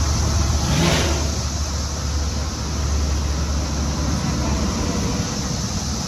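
Steady low rumble of highway traffic, with the loud, even drone of a chorus of Brood X periodical cicadas over it.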